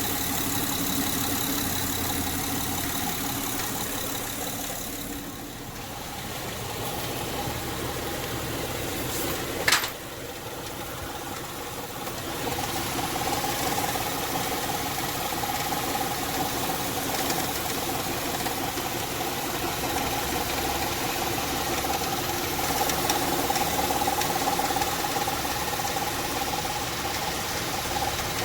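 2006 Honda Pilot's 3.5-litre V6 running with a ticking from the engine bay, the sign of a failing serpentine drive-belt auto tensioner. There is a single sharp click about ten seconds in.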